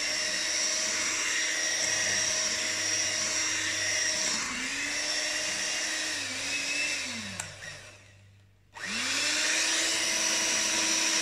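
Handheld electric mixer beating cake batter in a glass bowl. The motor runs steadily and dips in speed twice, then winds down and stops a little past halfway. About a second later it starts again, its pitch rising as it spins up.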